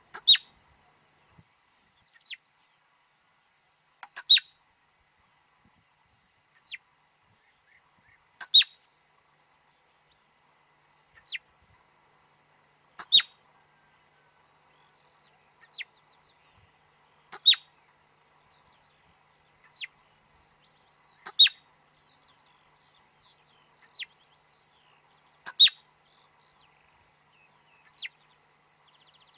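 Marmots giving short, sharp, high-pitched alarm whistles, one about every two seconds, with loud and fainter calls alternating.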